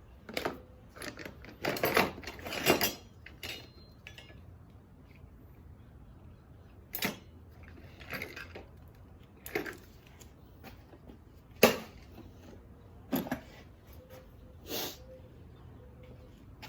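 Miscellaneous items being handled, picked up and set down: a string of separate, unevenly spaced knocks, clatters and rustles, the sharpest knock about two-thirds of the way through.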